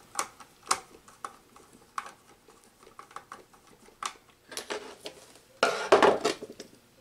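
Screwdriver and wire working at the screw terminals of a 24 V DC power supply: a run of small metallic clicks and taps, then a louder rustle of wire about six seconds in.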